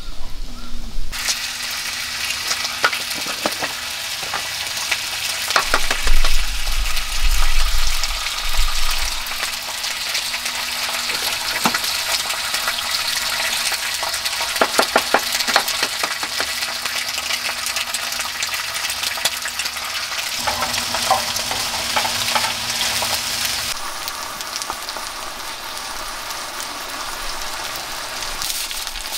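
Eggs and green peppers frying on a hot iron griddle plate: a steady sizzle with spitting crackles, starting about a second in. A low rumble joins in around six to nine seconds in, where the sound is loudest.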